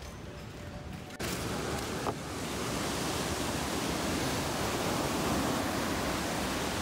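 Ocean surf breaking on the shore: a loud, steady rushing that starts suddenly about a second in, after quieter street ambience, and swells a little louder soon after.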